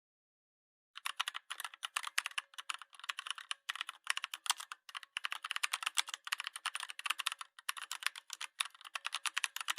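Fast computer keyboard typing: a dense run of key clicks broken by brief pauses, starting about a second in.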